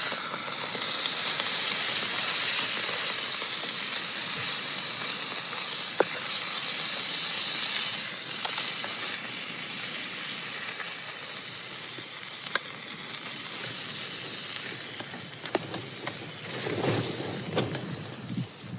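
Food sizzling and frying in a pan, a steady hiss with a few sharp pops that slowly dies down. Some low knocks and handling noises come near the end.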